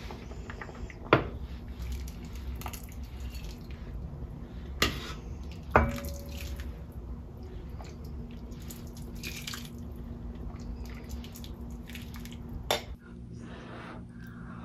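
Soup being ladled from an enamelled pot into a bowl: liquid pouring and dripping, with three sharp knocks of the ladle against the pot, over a low steady hum.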